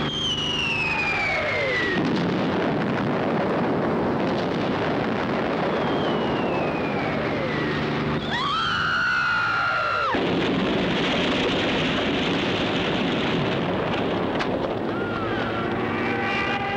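Falling aerial bombs whistling down, each a descending whistle, three in turn, over the dense rumble of explosions. Near the end a rising horn-like tone comes in.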